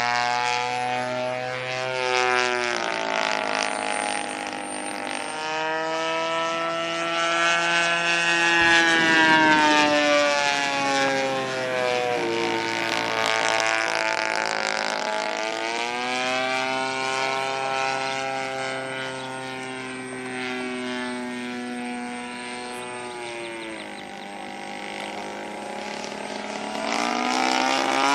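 Desert Aircraft DA-50 two-stroke gasoline engine of a giant-scale RC P-51 Mustang model running in flight, with the propeller buzzing. Its pitch rises and falls twice as the plane makes its passes, loudest about a third of the way in, and climbs again near the end.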